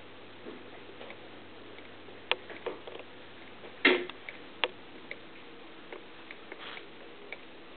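Somali kittens' paws and claws on a cat tree's woven basket platforms: scattered light taps and clicks, with a brief louder scrape about four seconds in.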